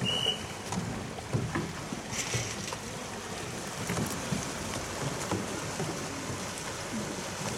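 Canoe polo play: kayak paddles churning and splashing the water, with scattered knocks of paddles and boats and a louder splash a couple of seconds in. A short high whistle tone sounds right at the start.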